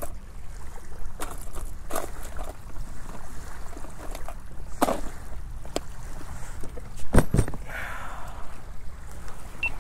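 Scattered plastic clicks and knocks from hands rummaging through lure boxes in a tackle bag, the loudest a double knock about seven seconds in, over a steady low rumble.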